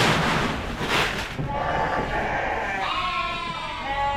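Dorper sheep bleating, several overlapping wavering calls from about a second and a half in, after a loud rush of noise at the start.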